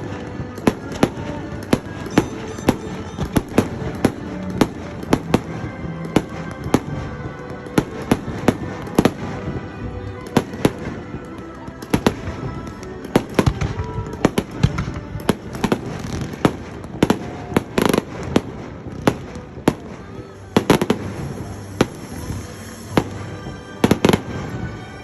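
Fireworks going off in quick, irregular bangs, several a second, with a few louder bangs near the end, over music playing underneath.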